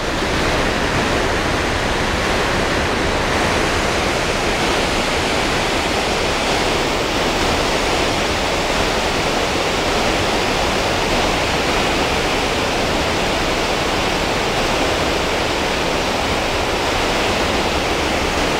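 River water pouring over a low concrete weir: a steady, even rush of falling water.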